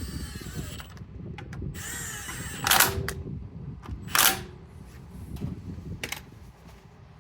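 Cordless drill-driver whirring in two short bursts as the transmission cover bolts are run in, followed by two sharp metal knocks and a few lighter clicks.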